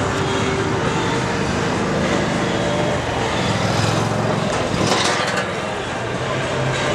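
A large vehicle running: a low engine drone under loud, even noise.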